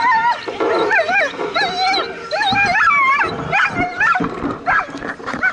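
Several sled dogs yelping and howling together in high, wavering, overlapping cries.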